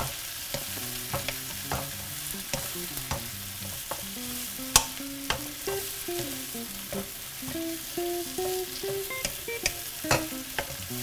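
Bell pepper pieces sizzling in hot oil in a frying pan, stirred with a wooden spatula that scrapes and knocks against the pan in frequent sharp clicks. Chopped tomatoes are tipped into the pan from a metal dish about halfway through.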